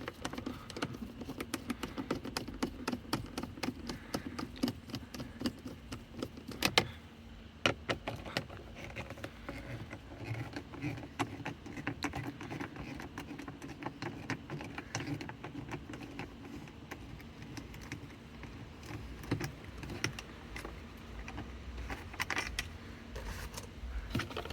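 Rapid clicking of a hand ratchet or driver as small screws on the glove-box trim panel are backed out, with a few louder knocks.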